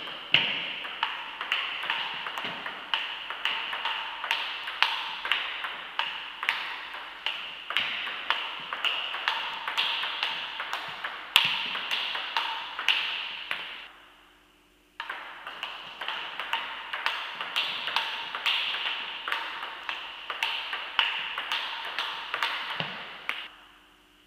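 Table tennis rally: a plastic ball hit back and forth, a steady run of sharp clicks off the bats and table, about two a second, ringing in the hall. The first rally dies away about 14 seconds in and a second one starts abruptly a second later.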